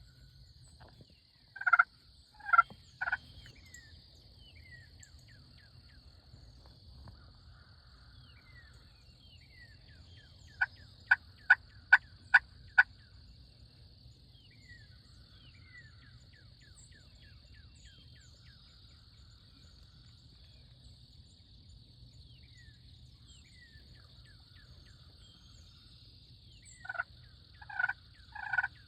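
Wild turkeys calling. There are three calls about 2 to 3 seconds in, then a quick run of six sharp yelps about 11 seconds in, and a series of calls starts up again near the end. Faint songbird chirps and a steady high hiss carry on between the calls.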